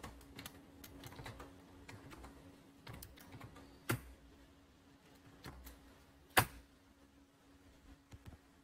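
Typing on a computer keyboard: irregular key clicks, with two louder single keystrokes, one about four seconds in and a sharper one about six and a half seconds in. A faint steady hum runs underneath.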